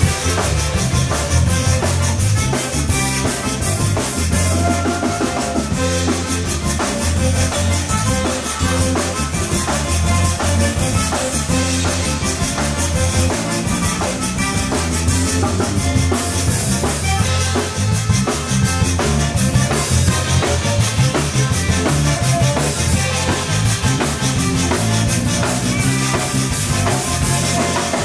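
Zydeco band playing: button accordion over a drum kit, electric bass and a corrugated-metal rubboard (frottoir) scraped in a steady rhythm.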